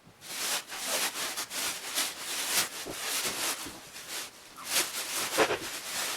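Packaging being handled and pulled off a new mitre saw: irregular rustling, crackling and scraping strokes of cardboard and wrapping.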